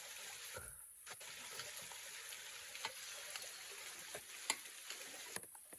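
A steady hiss with scattered sharp clicks and pops, briefly breaking off about a second in and again near the end.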